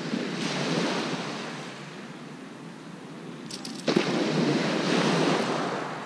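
Small waves breaking on a shingle beach, twice: a wash of surf in the first second and a half, then a second wave that comes in with a sharp crash about four seconds in.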